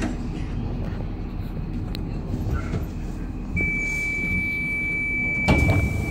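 DLR train standing at a platform, heard from inside the carriage: a steady low rumble from the train, then a steady high warning tone for about three seconds as the doors prepare to close, with a loud clunk of the sliding doors shutting about five and a half seconds in.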